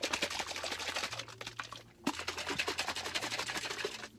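A protein shake being shaken hard in a plastic shaker cup, a rapid rattling and sloshing in two bursts with a brief break about two seconds in. It is being shaken to mix in powder left stuck under the lid.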